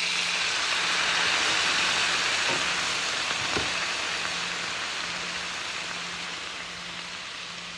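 Water poured into a hot, oiled skillet of halved Brussels sprouts, setting off a loud sizzle and hiss of steam that slowly fades.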